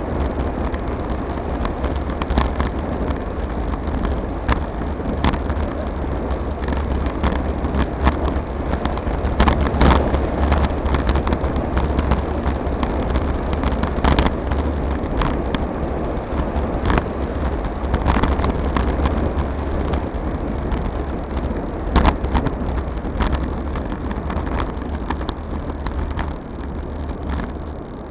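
Wind buffeting an action camera's microphone on a bicycle descending a paved road at speed, with tyre and road rumble and scattered knocks and rattles as the bike runs over the road surface. The noise eases off near the end.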